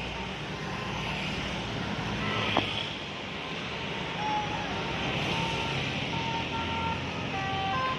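Road traffic passing, with a steady rush of engine and tyre noise and a single sharp click about two and a half seconds in.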